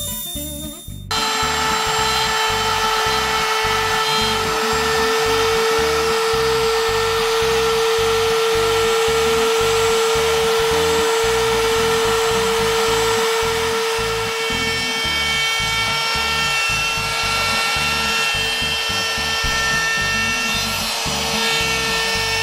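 CNC router spindle running with a steady high whine while cutting into wood, starting abruptly about a second in, over background music with a steady beat.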